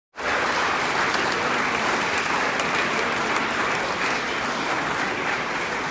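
Large audience applauding: dense, steady clapping that eases off slightly near the end.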